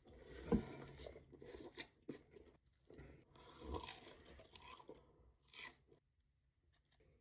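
Close-miked mouth sounds of a person biting and chewing a burger: irregular crunching and wet chewing, with a sharp crunch about half a second in. The chewing stops about six seconds in.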